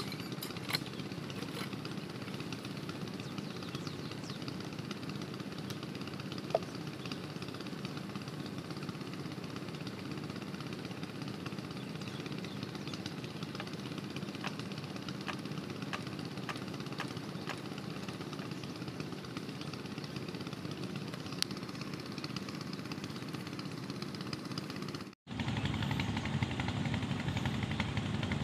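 Kirloskar 5 hp water-pump engine running steadily. Near the end the sound cuts out for an instant and comes back louder.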